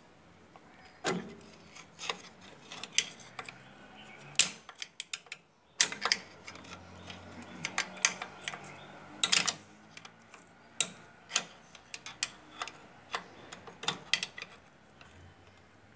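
Irregular sharp metallic clicks and clinks, a few each second with a brief lull about five seconds in, from a screwdriver levering against the shoes, springs and backing plate of a Bajaj three-wheeler's drum brake as the shoes are worked into place.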